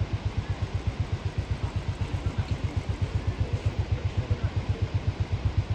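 Engine idling with a steady, even low pulse of about eight beats a second.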